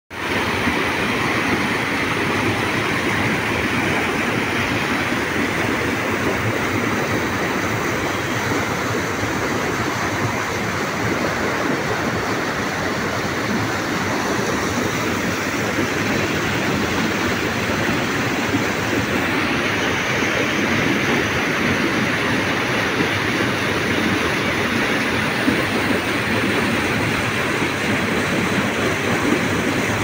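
River whitewater pouring over rocks into a pool below: a steady, unbroken rushing noise.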